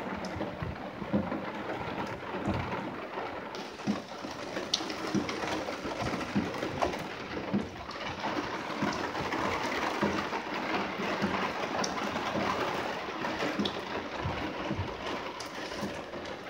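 Steady rain falling, with many small, sharp drop impacts ticking close to the microphone over an even hiss.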